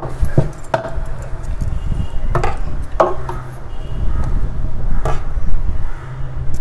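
Scattered sharp knocks and clicks of hand-tool work on a gas-spring mounting bracket being screwed to a kitchen cabinet panel, over a steady low hum.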